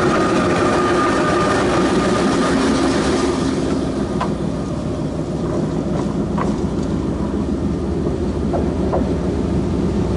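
Narrow-gauge Lyd2 diesel locomotive running over the track and rolling away, its engine loudest in the first few seconds and easing off after about four seconds. Several short clicks and squeaks from the wheels on the rails come in the second half.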